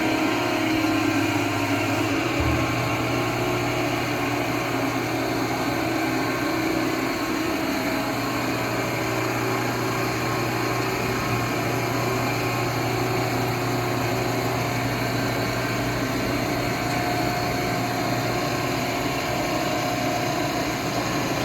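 Harris Selco 6030 vertical cardboard baler's 10 hp electric motor and hydraulic pump running steadily through its automatic compression cycle, with a constant low hum.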